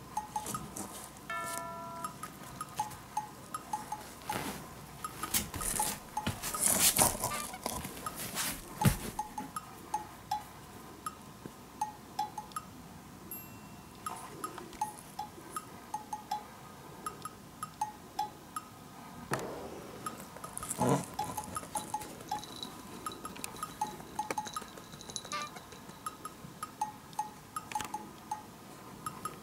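Light background music of plinking, bell-like percussion, with a few louder knocks and rustles about five to nine seconds in and again around twenty seconds.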